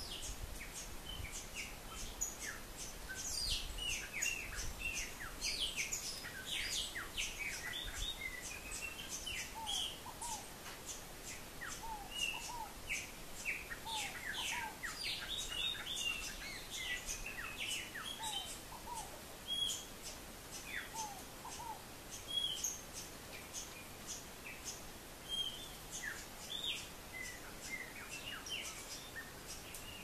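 Several birds calling at once: many quick high chirps and down-slurred notes, with a short rising note lower down repeated every second or two. A faint fast ticking runs underneath.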